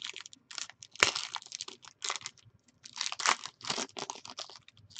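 Wrapper of a 2015-16 Panini Preferred basketball card pack being torn open and crinkled by hand, in short bursts of rustling, with a sharp click about a second in.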